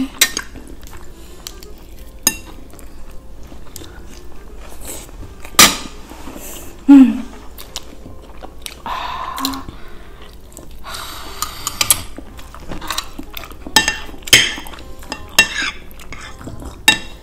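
Cutlery clinking and scraping against plates in scattered sharp knocks, thicker toward the end, with chewing of noodles and rice between them.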